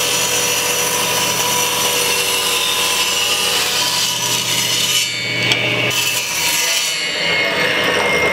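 Table saw running and ripping scrap cherry wood into thin strips: the motor's steady whine under the noise of the blade cutting. The cutting noise briefly drops away about five seconds in, then returns.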